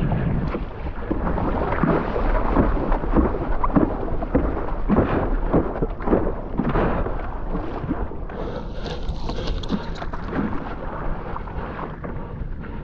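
Wind rumbling on an action camera's microphone, with irregular splashes of water from paddle strokes and the stand-up paddle foil board; the splashes are busiest in the first half and thin out later.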